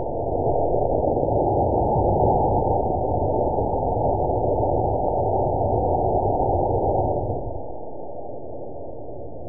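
Estes B6-4 black-powder model rocket motor firing on a static test stand, its exhaust blasting against a zinc screen: a steady rushing hiss that holds for about seven seconds, then drops to a quieter rush near the end.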